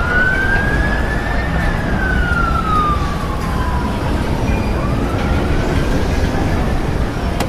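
An emergency vehicle's siren in a slow wail: it rises, falls slowly, and starts rising again about five seconds in, over a steady rumble of city road traffic.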